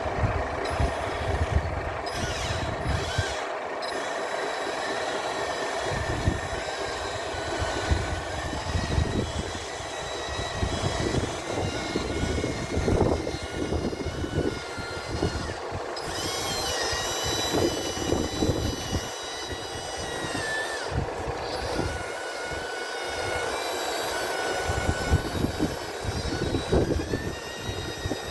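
Small electric motors of radio-controlled model construction machines whining steadily, their pitch shifting now and then as they work. Gusts of wind buffet the microphone underneath.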